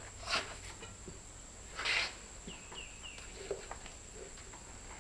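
Baby powder being puffed from a squeeze bottle into a tractor tire: two short hissing puffs about a second and a half apart, then three quick falling chirps.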